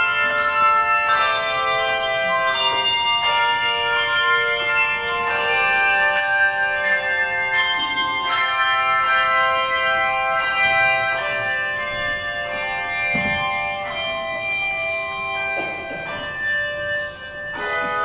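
A handbell choir ringing a hymn arrangement: chords of brass handbells struck together, each note ringing on as new chords come in over the fading ones.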